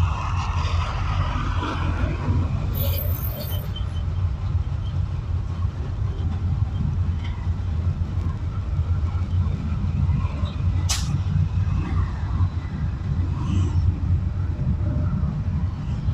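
Road noise of a car driving through city traffic, heard from inside the car: a steady low rumble of engine and tyres, with a single sharp click about eleven seconds in.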